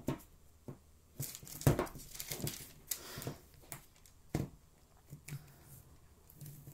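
Craft supplies being handled: packaging and tissue paper crinkling and rustling, with a few sharp knocks as items such as plastic jars are set down.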